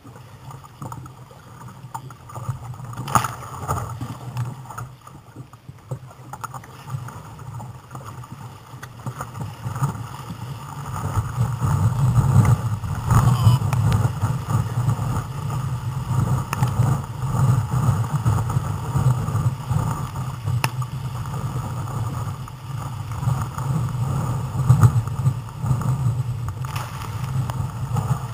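Sea water rushing and splashing against a sit-on-top kayak's hull as it is paddled out through breaking surf. It grows louder about a third of the way in as the waves break over the deck.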